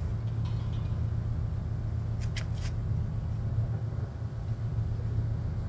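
A steady low engine hum, with a few brief clicks about two and a half seconds in.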